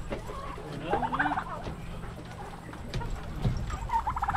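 Domestic turkey gobbling twice, a rapid rattling call about a second in and again near the end.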